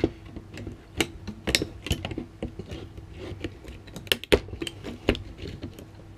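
Diagonal cutters and small hand tools clicking, snipping and scraping against a battery pack's circuit board and plastic holder as parts are cut and prised off, in irregular sharp clicks and knocks.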